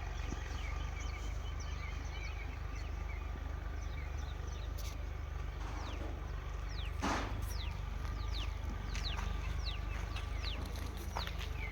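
Many short, high, quickly falling bird chirps over a steady low rumble, with a brief rushing noise about seven seconds in.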